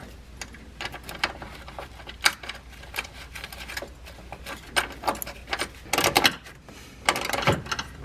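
Socket ratchet wrench clicking in short, irregular runs as a new M6 bolt is run down to snug on a chassis ground lug, with small metal clinks; the densest clicking comes about six seconds in and again near the end.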